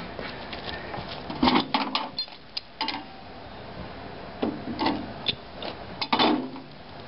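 Scattered knocks and clatter from hands working around a small engine rig. Short bursts come in two clusters, one about a second and a half in and another around four and a half to six seconds in, and no engine is running.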